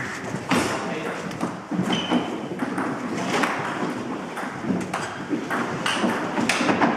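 Table tennis ball in a fast rally: a string of sharp clicks as it strikes the bats and bounces on the table, about one every half second to second, echoing in a large hall.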